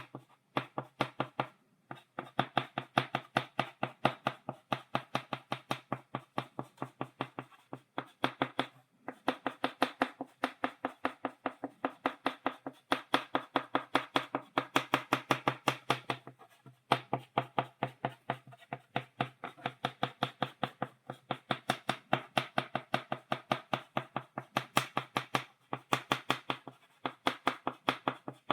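Chalk tapped rapidly against a blackboard, dotting: runs of quick sharp taps, about five a second, broken by brief pauses every few seconds.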